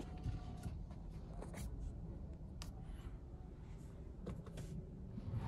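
Low steady background hum inside a car cabin, with a few scattered soft clicks.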